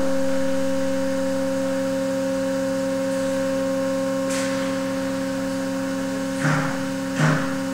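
Steady machine hum from a structural test rig's equipment, holding several fixed pitches. Near the end, two short crackling noises come about a second apart.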